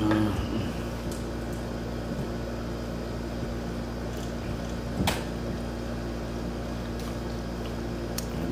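A steady machine hum with a constant low drone fills the room. A short vocal sound comes right at the start, and a single sharp click about five seconds in.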